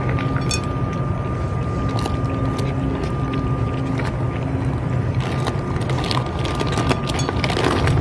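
Cats eating dry food from metal dishes, with scattered small chewing and dish clicks, over a steady low drone and a faint steady high tone.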